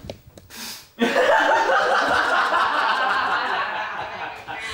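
Women laughing hard. The laughter breaks out loudly about a second in and carries on, easing a little near the end.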